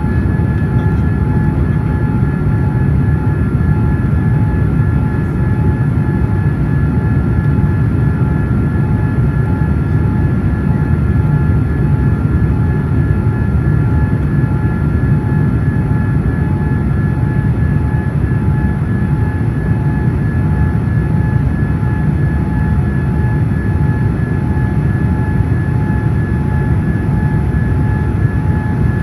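Steady cabin noise inside a Boeing 787-10 airliner: an even low rumble with a few faint, steady whining tones above it.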